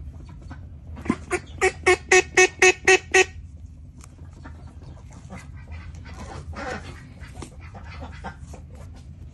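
Duck quacking about nine times in quick succession, about four quacks a second, then stopping. Faint rustling and crinkling of paper tape and towel being handled follows.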